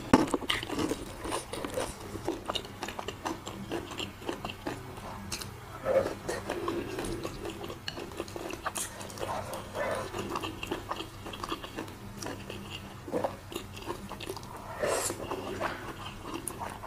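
Close-up sounds of a person biting and chewing crispy batter-fried pork (guobaorou), a steady run of small crunches and crackles. One sharp click right at the start.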